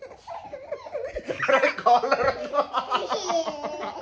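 A man and a small child laughing together during play, the laughter growing louder about halfway through, with a long falling squeal-like laugh near the end.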